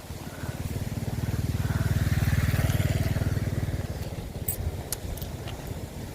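A small engine passing by, growing louder to a peak a couple of seconds in and then fading away, followed by a few short clicks.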